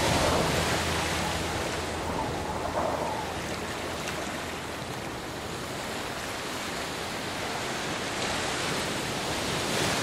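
Ocean surf rushing and washing in, a steady roar of breaking waves that eases off in the middle and builds again toward the end.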